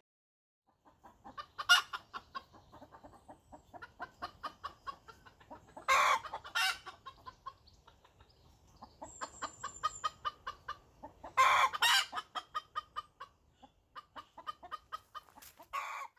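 Domestic hens clucking in quick runs of short calls, broken by several louder squawks.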